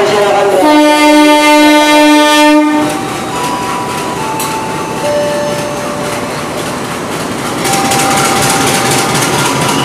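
Diesel locomotive horn sounding one steady blast of about two seconds, then the locomotive and its train running past as they pull out, louder again near the end.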